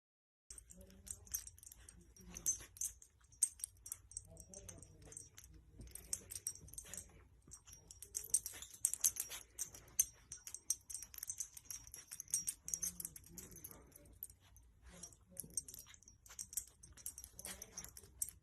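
A dog making short low sounds amid many small clicks and rattles, like tags or a collar jangling.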